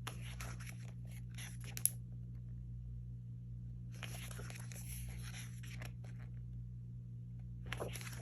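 Glossy album photobook pages being handled and turned: paper rustling in three short spells, with one sharp click about two seconds in, over a steady low hum.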